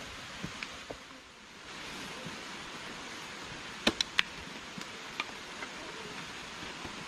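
Large banana leaves being handled and swung, giving a few sharp crackles and snaps, three loud ones close together about four seconds in, over a steady rushing hiss of forest background.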